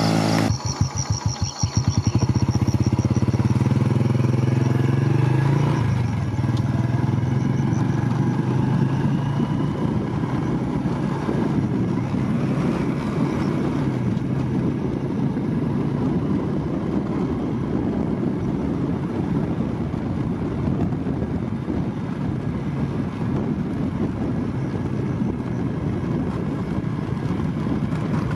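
A vehicle engine: a quick run of rapid pulses about half a second in, a steady low hum for a few seconds, then even running noise through to the end.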